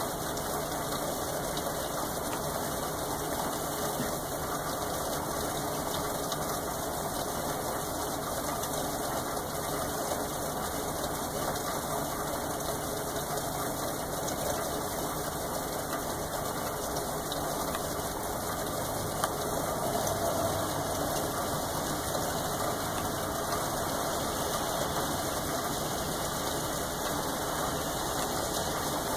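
Steady rainfall, an even hiss of drops with no break, swelling slightly about twenty seconds in.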